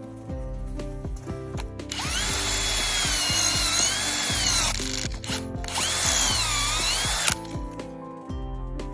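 A power tool running in two bursts of about two and a half seconds each, its whine wavering up and down in pitch as the speed changes under load, over background music.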